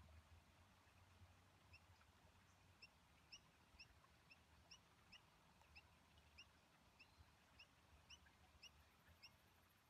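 Near silence: faint room tone with a low hum and short high chirps repeating about twice a second.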